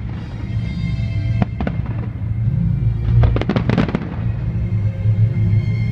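Fireworks going off over loud music: a few sharp bangs about a second and a half in, then a rapid cluster of crackling pops around the middle.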